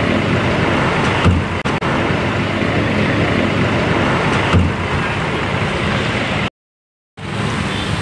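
Steady vehicle and engine noise of a bus terminal around a parked coach, with two short dull thumps about a second in and again past four seconds; the sound drops out completely for a moment near the end.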